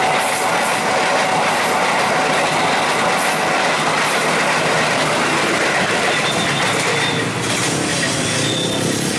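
Locomotive-hauled passenger coaches rushing past close by, their steel wheels clattering rhythmically over the rail joints, with a thin steady whine in the first half. The sound thins a little near the end as the last coach moves away.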